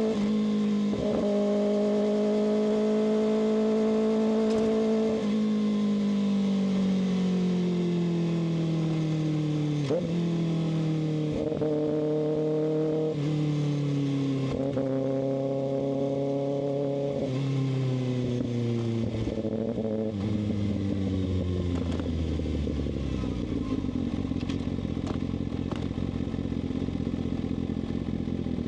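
Kawasaki ZX-6R's inline-four engine holding a steady note, then falling in pitch as the bike slows, with the revs jumping back up several times as it is shifted down through the gears. It settles into a low idle about 22 seconds in.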